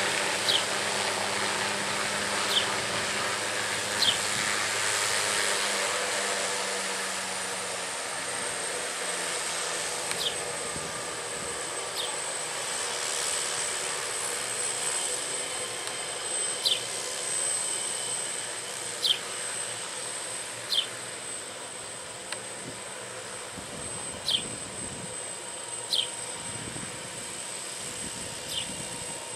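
Hughes OH-6A (MD369A) helicopter's Allison 250 turboshaft running at ground idle, with slowly turning rotors: a steady rushing hiss under a thin high whine that rises a little in pitch over the first several seconds, then holds. Short sharp chirps come every couple of seconds over it.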